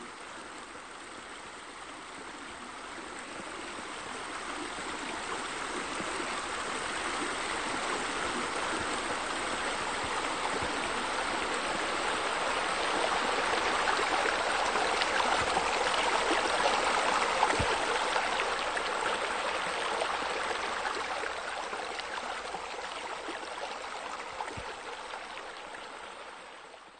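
Steady splashing and trickling of running water from pool water features, a bubbler fountain and sheer descents pouring off a raised wall into the pool. It swells slowly to its loudest past the middle, eases off, and stops abruptly at the end.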